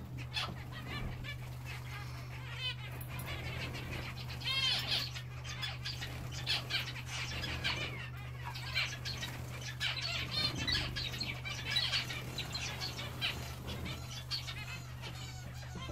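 Zebra finches in an aviary giving many short, repeated chirping calls, with brief wing flutters as they bathe in a birdbath.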